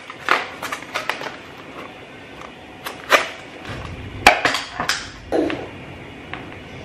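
Tableware clinking and knocking as people eat: about a dozen sharp taps of spoons or chopsticks against bowls and dishes at irregular intervals. The loudest come about three and four seconds in.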